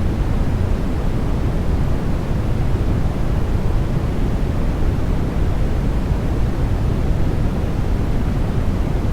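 Continuous electronically generated sleep noise: an even, unbroken rushing hiss that is heaviest in the low end and has no rhythm or events.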